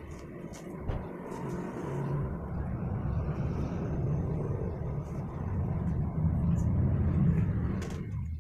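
A low, engine-like rumble, like a motor vehicle running nearby, that builds over several seconds and then cuts off suddenly near the end. A few faint clicks come in the first second.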